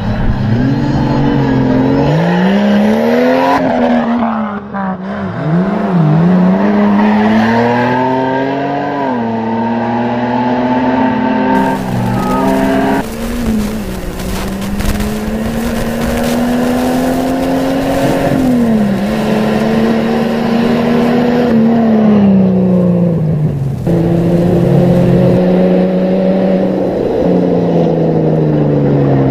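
Off-road race vehicle's engine under heavy throttle, its pitch rising and falling again and again as it revs and eases off.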